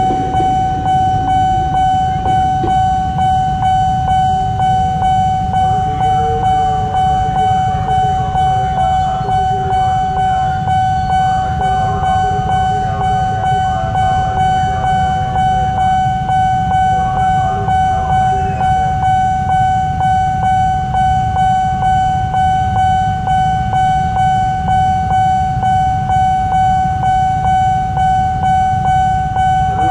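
Railway level-crossing warning alarm sounding without pause as one pulsing tone, about two strokes a second, while the barrier stays down. Under it runs a steady low rumble of waiting motorbike engines, and the tail of a KRL electric commuter train passes at the start.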